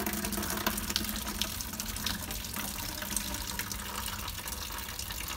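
Condensate water pouring in a steady stream from the opened drain of a wood-gas truck's hay filter, splashing into a metal bucket.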